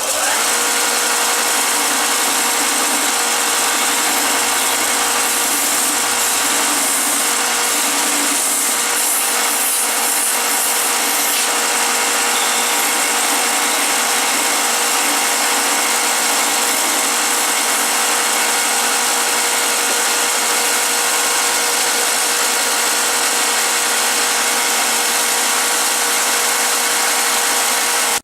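Belt sander running steadily while a red alder cane handle is ground against its coarse belt: a constant motor hum under a loud, even hiss of wood being abraded, which then cuts off abruptly.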